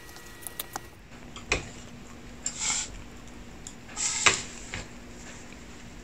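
Wooden chopsticks and apple wedges tapping, knocking and scraping against a metal cake tin as the slices are set in place. There are light clicks, then a few knocks and two short scrapes, with the sharpest knock about four seconds in.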